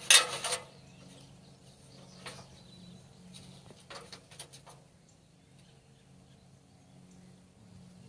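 Aluminium extension ladder being run up by hand: a loud metallic rattle of the sliding section for about half a second at the start, then a few faint clicks.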